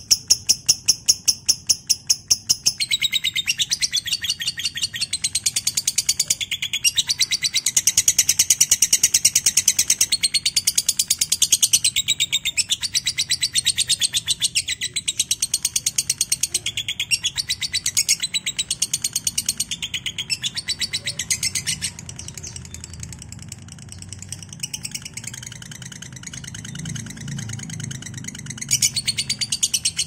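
Lovebird ngekek: a long, fast chattering trill of rapid high-pitched pulses, kept up without a break for nearly twenty seconds. It then drops to a softer, broken chatter, with a short louder burst near the end.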